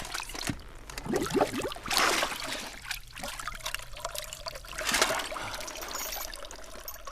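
Water trickling and splashing, with louder splashes about two and five seconds in.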